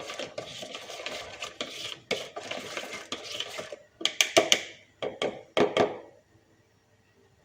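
A utensil stirring and scraping round a bowl of crepe batter for about four seconds, then a quick series of sharp clinks and taps of metal against the dish. It falls quiet near the end.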